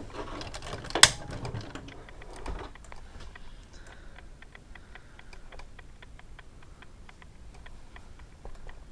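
Irregular run of light clicks and taps, with one sharp, louder click about a second in.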